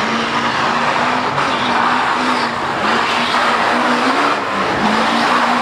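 Lifted diesel mud race truck's engine held at high revs under full load, its pitch wavering slightly, with the loud steady rush of oversized tires spinning and slinging mud.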